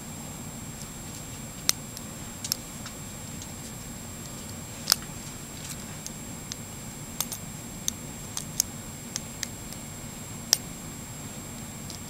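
Small sharp clicks at irregular intervals, about a dozen, two of them louder, as a hook pick pushes up the serrated pin stacks of an American Lock Series 80 padlock held under tension. These are the little clicks of pins being lifted toward the shear line. A faint steady hum runs underneath.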